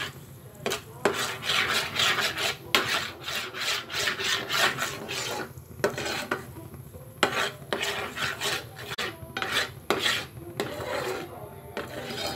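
A spoon scraping and stirring bubbling sugar caramel in a pan, in irregular strokes with a few sharp clicks against the pan. The sugar and water are caramelizing over low heat and are stirred from the sides so they do not burn.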